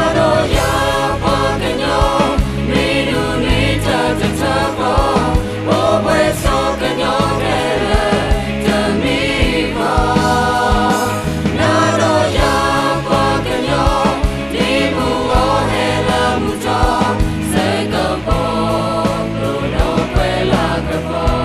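A group of voices singing a song together over a band of keyboards and guitars.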